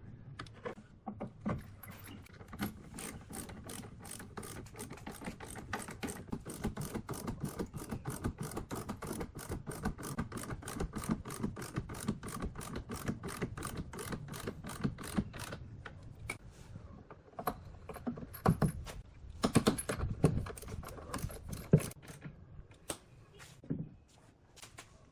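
A rapid, steady run of sharp mechanical clicks, several a second, with a louder stretch about three-quarters of the way through.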